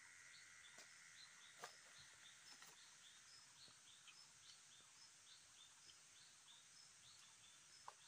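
Near silence: faint outdoor ambience with short high chirps repeating about twice a second, and a few faint clicks.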